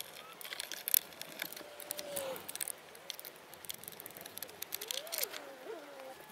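Scattered small clicks and rattles of hand work: a screwdriver being used and a plastic cable drag chain being handled and moved.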